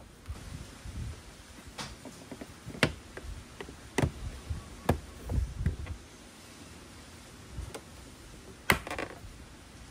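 Hard plastic trim panels on a Yamaha TMAX scooter's floorboard clicking and knocking as they are fitted together by hand: several sharp snaps and taps with soft rubbing of plastic between, the loudest snap near the end.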